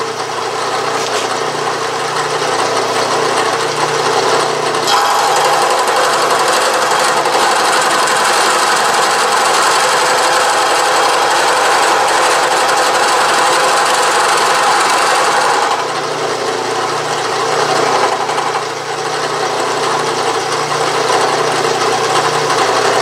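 Milling machine running with a form gear cutter milling the last tooth space of a steel gear blank held in a dividing head. The cutting noise grows heavier about five seconds in, as the cutter takes its full depth through the blank, and eases again about sixteen seconds in as it feeds out.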